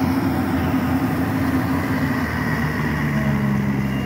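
Yanmar combine harvester's diesel engine running steadily under load while it cuts and threshes standing rice. The engine note shifts lower about three seconds in.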